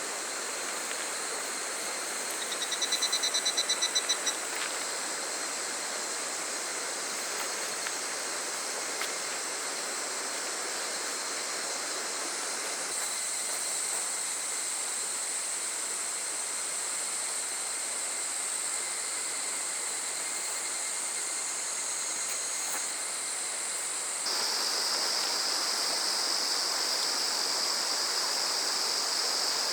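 A small stream flows steadily under a constant high drone of summer cicadas. About three seconds in, a higurashi (evening cicada) gives a short burst of rapid pulsing notes. About 24 s in, a louder, steadier high buzz takes over.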